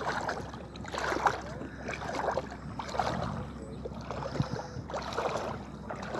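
Water sloshing and splashing close by, in repeated swells about once a second, as of a person moving through shallow sea water or small waves lapping.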